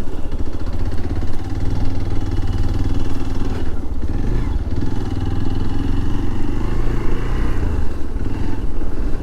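Hero Xpulse 200 motorcycle's single-cylinder engine running steadily as the bike is ridden, with a low, pulsing beat.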